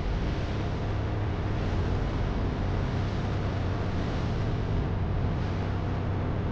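ATV engine running steadily while riding, with a low drone and an even rush of wind noise on the camera microphone.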